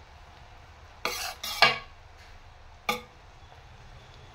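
Metal spoon scraping and knocking against a metal pan while stirring fried rice: two quick scrapes about a second in, then a single short one near three seconds.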